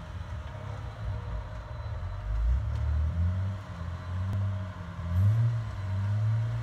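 Off-road vehicle's engine running at low revs, its pitch rising and falling, with louder swells of revs about two and a half and five seconds in.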